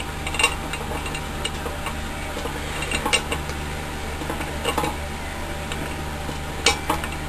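Metal bicycle parts clicking and clinking lightly as a nut is screwed onto a BMX crank by hand to hold the bottom-bracket bearings, a few scattered clicks over a steady low hum.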